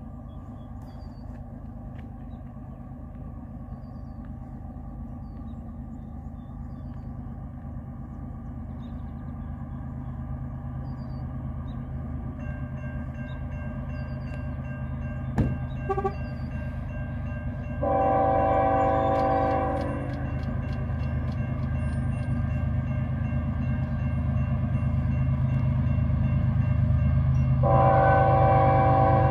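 Approaching GE ES44AC diesel freight locomotive CN 2951 sounding its Nathan K5HL five-chime horn for the grade crossing: one long blast about two-thirds of the way in and a second starting near the end. Beneath the horn, the train's low rumble grows steadily louder as it nears.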